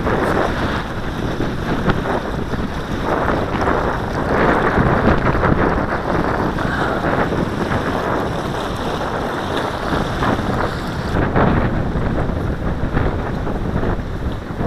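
Strong gusting wind buffeting the microphone of a cap-mounted camera: a rough, steady rumble and rush that swells and eases with the gusts.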